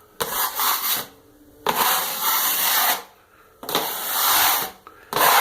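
Drywall knife scraping joint compound across a rough wall while skim coating it, in about four strokes of roughly a second each with short pauses between them.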